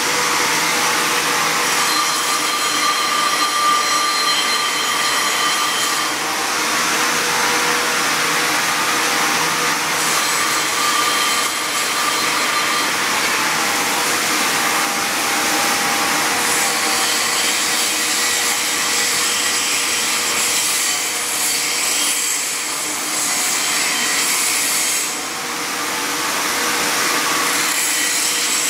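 Steady hiss of a TIG welding arc on a pipe joint, with a steady hum underneath; the level dips briefly about 25 seconds in.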